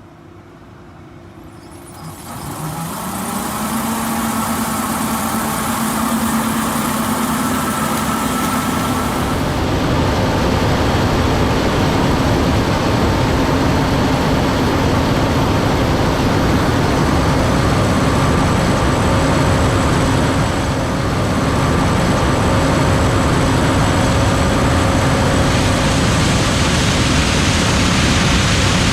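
John Deere S7 800 combine, with its 13.6-litre John Deere PowerTech diesel, harvesting corn: its engine and threshing noise grow louder over the first few seconds, the hum rising in pitch, then it runs steady and loud.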